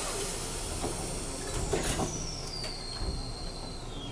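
Kyoto Randen (Keifuku) tram slowing to a stop at a station, with a broad hiss and a high whine that falls in pitch over the last second or so as it decelerates. There is a single knock about two seconds in.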